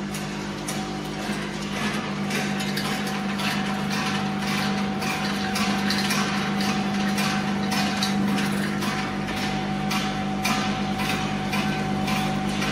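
Bouillon cube counting and filling machine running: a steady motor hum with a faint high whine, and regular sharp mechanical clicks a few times a second.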